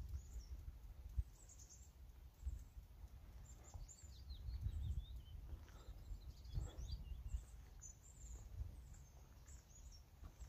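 Small birds chirping and singing, many short high calls, over a low rumble.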